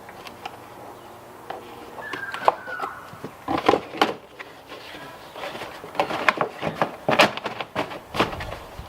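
Irregular knocks, scrapes and rustles of hands working in the car's stripped rear, with a short falling squeak about two seconds in.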